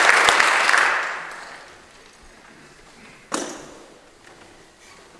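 Audience applause dying away over the first second or two, then a single sharp knock about three seconds in with a short ringing tail, followed by faint rustling.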